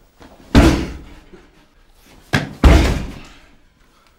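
Two heavy kicks against an entry door held shut by an OnGARD floor-mounted door brace, about two seconds apart, each a loud bang that rings out for about a second; the second kick has a lighter knock just before it. The door holds against the brace.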